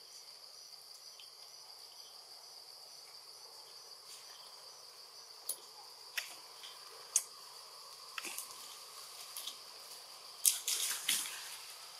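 Forest ambience: insects drone steadily at a high pitch, and from about halfway in come a few sharp clicks, with a quick cluster of louder ones near the end.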